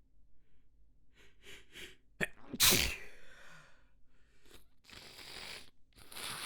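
A person sneezing once, loudly, after a couple of quick catching breaths in. Several noisy breaths follow in the second half.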